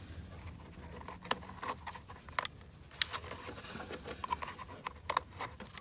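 Scattered light clicks and taps of hard plastic as the replacement rear console vent unit of an Audi Q5 and its wiring connector are handled, over a faint steady hum.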